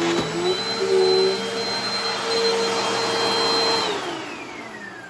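Dirt Devil Dynamite Plus bagless upright vacuum cleaner running with a steady whine, then switched off near the end, its motor winding down in a falling whine.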